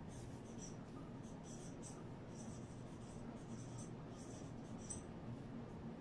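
Marker tip squeaking on a whiteboard in quick short strokes as letters are written, over a low steady hum.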